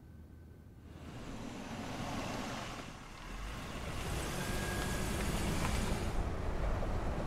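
A car driving through an underground car park: engine and tyre noise building about a second in, dipping briefly near three seconds, then a steady low rumble.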